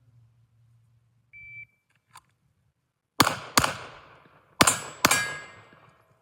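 A shot-timer start beep, then four 9mm pistol shots from a red-dot Glock 45. Two come in quick succession, then a pause of about a second for a reload, then two more. Ringing tones linger after the last pair, the steel target being hit.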